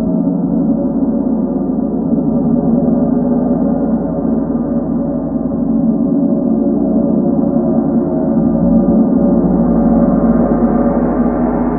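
40-inch Chau gong played with soft felt mallets: a sustained wash of many overlapping tones with no separate strikes, which swells and grows brighter about nine seconds in.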